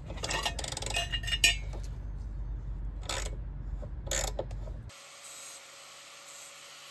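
Small metal parts clinking and rattling as they are handled, with a few sharp clicks. About five seconds in, this cuts off suddenly and a quieter steady hiss takes over.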